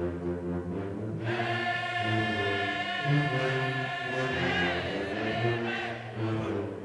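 Slow ensemble music of long held chords that shift every second or so, with no percussion.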